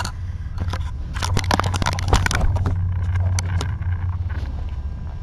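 A two-week-old kitten's claws scrabbling and scraping across a surface as it crawls off, a dense run of short scratchy clicks thickest in the middle, over a steady low hum.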